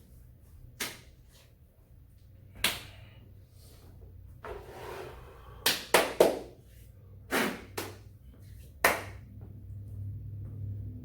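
A series of about eight sharp hits, irregularly spaced, with three close together around six seconds in, and a short rubbing hiss just before them.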